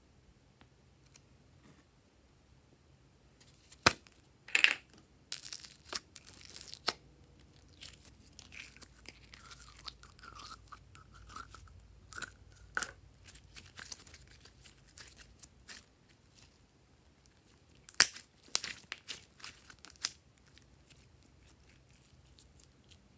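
Store-bought slime being handled, stretched and squished: sticky crackling and popping that starts a few seconds in, with a few loud sharp snaps, one pair about four seconds in and another near eighteen seconds.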